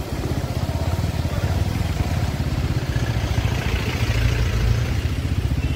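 Motorcycle engine running at low speed, a steady low throb of firing pulses heard from the rider's seat.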